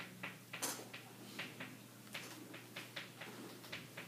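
Chalk tapping and scratching on a chalkboard in quick short strokes: a dozen or so sharp ticks at an uneven pace, the strongest about two-thirds of a second in, over a steady low room hum.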